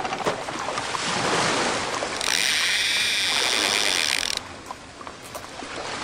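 Sound-effect track of a fishing reel's drag ratchet buzzing fast and high for about two seconds, as if a fish is pulling line, then stopping abruptly. Before it there is a steady rushing wash like surf.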